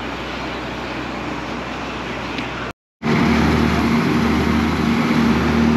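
Steady outdoor noise, cut off by a brief dropout about three seconds in, after which a moored passenger ferry's engine runs steadily and louder, with a low even hum.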